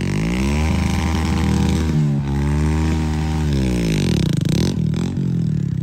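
Heavy vehicle's diesel engine revving. It rises at the start, holds, dips and picks up again about two seconds in, then winds down near four seconds.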